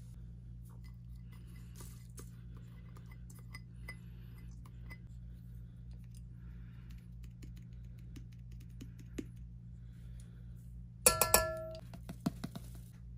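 Light clicks and rustles of spice tins and a metal measuring spoon being handled over a stainless steel mixing bowl. About eleven seconds in comes a quick run of loud metallic clinks that ring on, as metal strikes the steel bowl, with a few lighter taps after; a steady low hum runs underneath.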